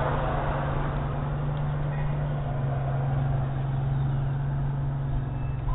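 A steady low hum over a constant background hiss, heard through a doorbell camera's microphone.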